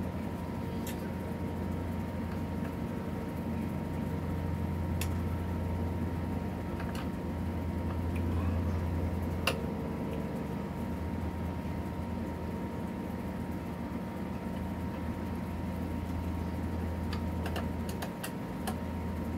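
A steady low machine hum, with a few scattered light clicks and taps from small parts and hand tools being handled.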